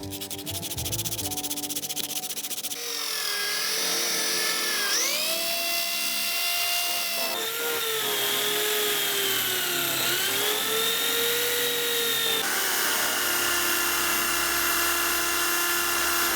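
A small electric power tool runs in several short clips, its whine dipping in pitch and recovering as it is pressed against the work.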